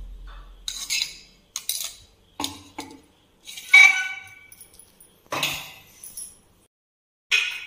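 Clinks and scrapes of a steel mixer-grinder jar and utensil against a ceramic bowl as the jar is emptied. The sounds come as separate knocks and scrapes, the loudest a ringing metallic clink about four seconds in.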